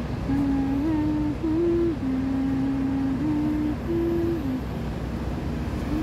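A woman humming a slow tune of held notes that step up and down in pitch, over a steady low rumble of city traffic.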